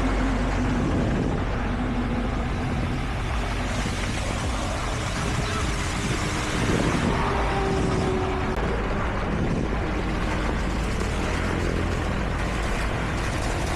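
Heavy construction machinery running: a steady engine rumble, with engine tones that shift in pitch now and then.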